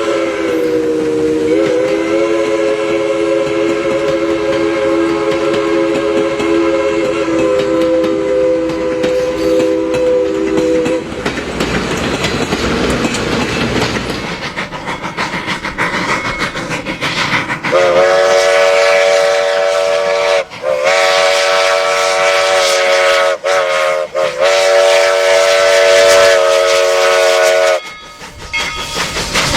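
Train horn sounding a long chord of several notes for about eleven seconds, then the rumble and clatter of the train on the tracks, then the horn again for about ten more seconds with a few brief breaks.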